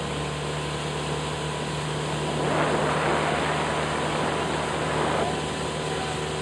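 Outboard motor of a small boat running steadily with a low hum, while a louder rushing noise swells for about three seconds in the middle.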